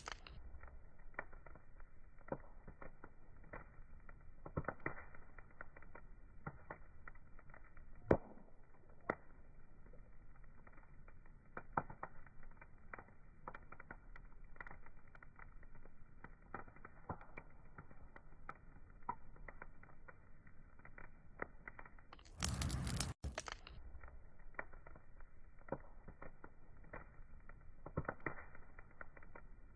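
Wood fire crackling, with irregular snaps and pops over a soft hiss; one sharper pop about eight seconds in. Near the 23-second mark a brief, louder rushing burst lasts under a second.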